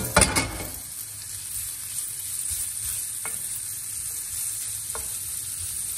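Guanciale strips sizzling steadily on low heat in a stainless steel frying pan as they start to sweat out their fat, with a wooden spoon stirring them against the pan. A louder scrape comes just after the start, and two light knocks of the spoon on the pan come later.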